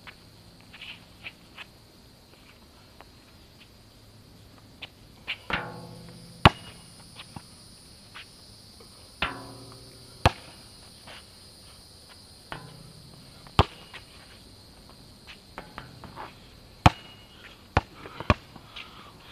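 Basketball bouncing on an outdoor asphalt court: sharp single bounces a few seconds apart, then a quicker run of bounces near the end as it is dribbled, over a steady high chirring of crickets.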